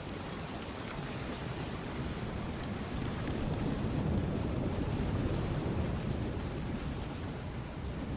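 Thunderstorm ambience: steady heavy rain with a deep rumble that swells about three seconds in and eases off near the end, like rolling thunder.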